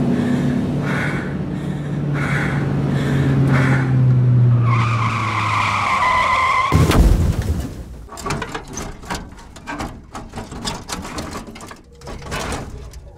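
A car engine running, then tyres screeching for about a second, a sudden crash about seven seconds in, and scattered crackling and clicking that grow fainter afterwards, like a car skidding off the road and crashing.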